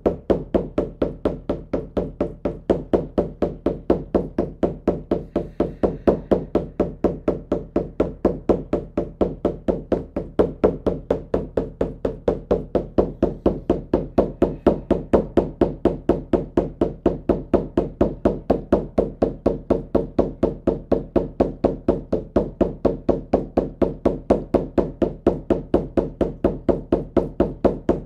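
Shamanic frame drum beaten in a steady, even rhythm of about four strokes a second, each stroke ringing briefly: the repetitive drumbeat used to carry listeners into a shamanic journey.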